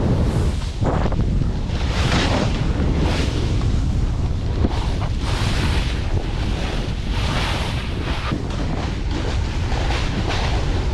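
Wind buffeting the microphone while a snowboard rides through heavy snow, the board's scraping hiss swelling and fading about once a second.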